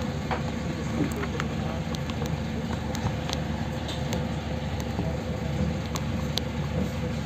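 PAZ 320405-04 bus engine idling steadily, heard from inside the cabin, with scattered light clicks and rattles from the bus body.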